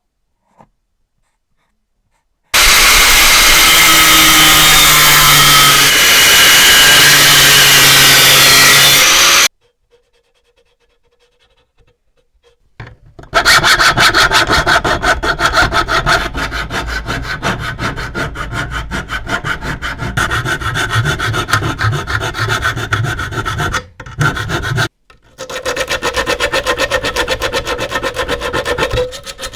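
A loud, steady machine noise that starts and stops abruptly and lasts about seven seconds. After a pause comes a long run of rapid, even scraping strokes of hand tool work, broken twice by short stops near the end.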